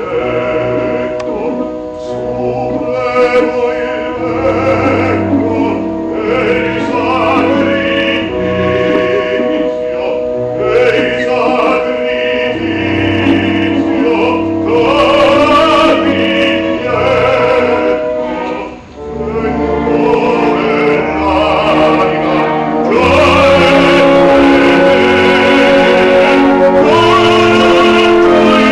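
Operatic singing with orchestral accompaniment: long held, wavering sung notes over the instruments. The music grows louder and fuller about two-thirds of the way through.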